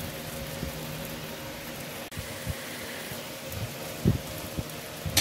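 Salmon fillets sizzling skin-down over open flame on a grill, a steady crackling hiss as the fire cooks the skin. A short low knock about four seconds in.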